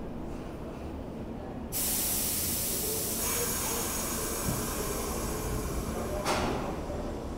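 New York City Subway train's air brakes releasing with a sudden loud hiss about two seconds in, the hiss carrying on as the train starts to pull out, with a brief sharper burst of hiss near the end.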